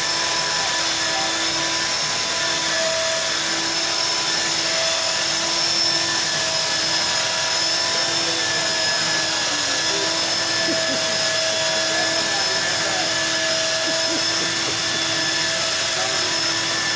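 Handheld electric belt sander running steadily as it is pushed over a wooden tabletop: a constant motor hum with a whine over the hiss of the belt on the wood.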